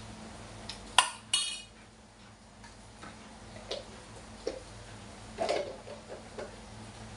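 A metal spoon clinks sharply against cookware about a second in, ringing briefly, followed by a few lighter knocks and clinks of pots and utensils over a low steady hum.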